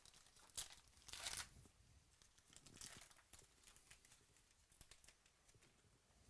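Faint tearing and crinkling of a foil trading-card pack wrapper being ripped open by hand: a sharp click, then a short rip about a second in and a fainter one near three seconds, with light crinkles and clicks of handled cards after.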